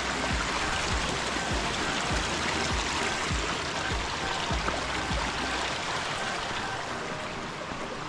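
Running water from a stream rushing steadily. Low thuds of footsteps at a walking pace, a little under two a second, fade out about five seconds in.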